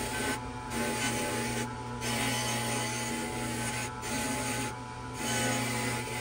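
Bench grinder's wire wheel running steadily, scrubbing the rusty surface of a small jeweler's hand vise part held against it. A steady motor hum sits under a harsh scratching hiss that drops away briefly several times as the part is lifted off and turned.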